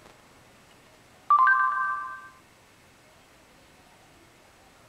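Google voice search's electronic chime on an Android Jelly Bean phone: two quick notes, the second higher, ringing out for about a second, the sign that it has stopped listening and is fetching the answer.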